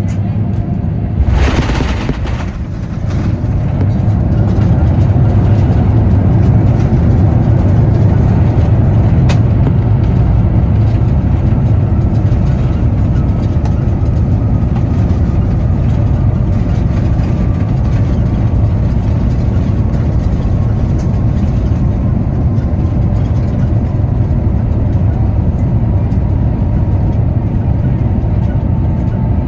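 Airbus A350-1000 touching down hard with a sudden jolt about a second in. Then comes the loud, steady rumble of the landing rollout beside the Rolls-Royce Trent XWB engine, with an engine whine slowly falling in pitch as the aircraft slows.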